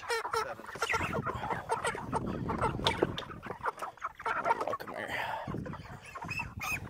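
A crowd of chickens clucking and squawking with many short overlapping calls, with scattered knocks mixed in, as the birds are caught and crated.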